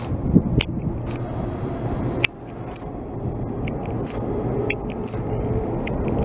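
JR 185 series electric train pulling slowly into the platform: a steady low rumble with several sharp clicks.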